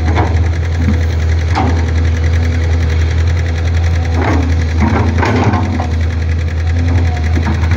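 Diesel engine of a Matador crawler excavator running steadily under load while it digs and dumps soil, with several brief louder bursts of noise over the engine.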